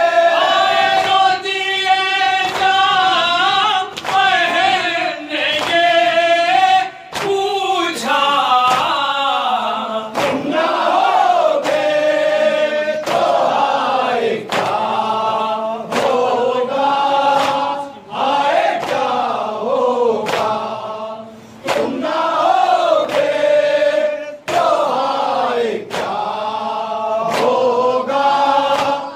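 Several men chanting a nauha, a Shia Muharram lament, in unison into a microphone, their voices sliding through long mournful phrases. A sharp slap lands about once a second, keeping the beat.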